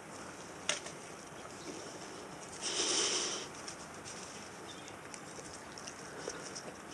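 Two small dogs sniffing about and their claws ticking on concrete as they hunt for crickets. There is a sharp click just under a second in, and a louder rustling about three seconds in that lasts under a second.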